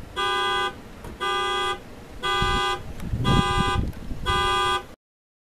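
A car horn sounding in a regular pulse, as a car alarm does: five half-second honks about a second apart. The sound then cuts off dead.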